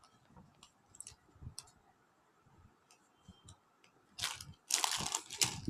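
Light taps and clicks of packaging being handled, then, about four seconds in, a loud rustling crinkle of wrapping lasting about a second and a half as the gift pack is opened.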